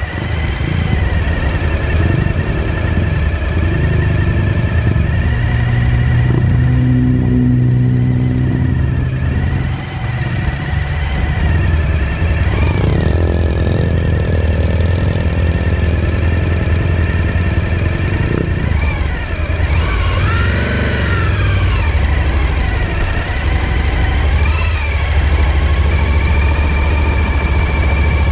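Motorcycle engine running steadily under way. A thin high whine runs along with it and rises and falls in pitch a few times in the second half.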